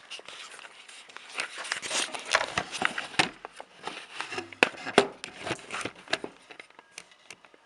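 Rustling and handling noise close to the microphone, with many sharp, irregular clicks and crackles. A brief murmur of a voice comes about four and a half seconds in.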